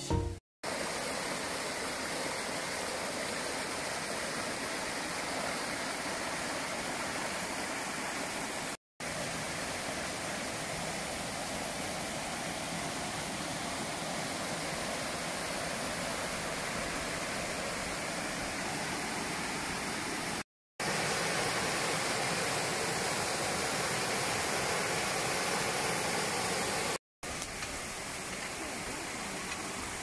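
Steady rush of a mountain stream cascading over rocks. It is broken four times by short gaps of silence, and the level shifts a little after each gap.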